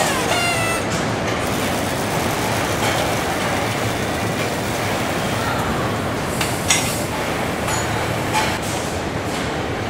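Assembly-line machinery on a truck engine line: a steady din of conveyors and overhead carriers, with a brief whine at the start and a few sharp metallic clicks and knocks, the clearest about six and a half and eight seconds in.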